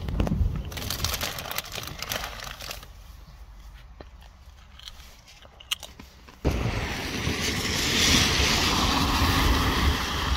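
Inside a car in the rain: low cabin rumble with windscreen wipers sweeping across the wet glass and a few clicks. About six seconds in it cuts to outdoors, where a loud steady hiss of wind and tyres on the wet road takes over as a van drives over the level crossing.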